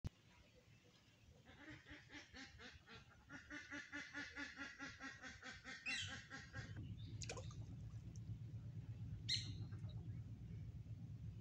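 Ducks quacking in a quick, even run, about five quacks a second, stopping about six and a half seconds in. A steady low hum follows.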